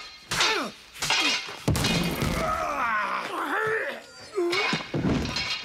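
Two men fighting with cutlasses: sharp crashes and thuds of blows and breaking things, with strained grunts and cries in the middle.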